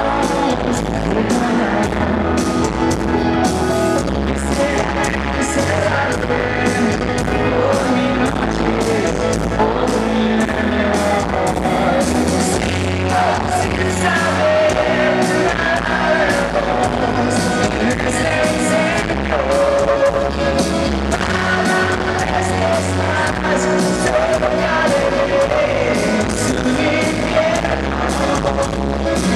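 Live rock band: a male lead singer singing over electric guitar, bass and drums, with a steady drum beat.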